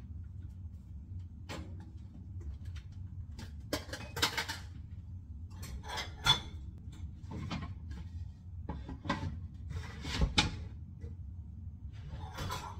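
Dishes and kitchenware being handled and set down while washing up: irregular clinks and knocks, the sharpest a little past six seconds and just past ten seconds in, over a steady low hum.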